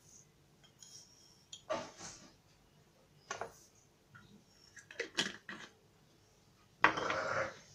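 A metal spoon clinking and tapping against a glass jar and a steel mixing bowl as sesame seeds are spooned into flour: a few light clicks, then a short, louder rustle near the end.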